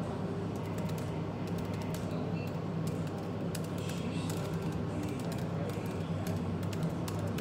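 Typing on a laptop keyboard: quick, irregular key clicks that keep going. Behind it sit a steady low hum and background café chatter.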